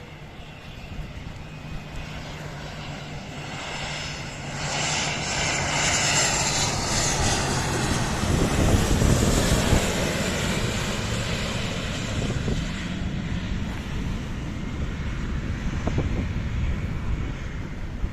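Beriev Be-200 amphibious water bomber's turbofan engines, growing louder from about four seconds in, loudest around eight to ten seconds in, then running steadily loud as the aircraft skims the sea to scoop water.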